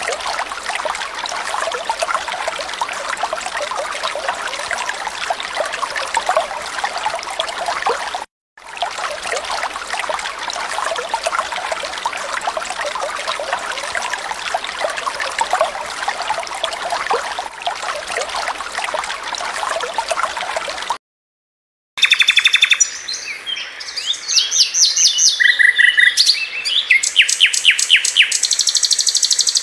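Steady underwater crackling and fizzing for about twenty seconds, then a short silence, then a European robin singing in quick, high trills and whistled phrases.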